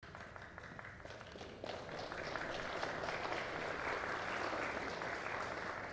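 Congregation applauding, light at first and swelling to fuller clapping about a second and a half in.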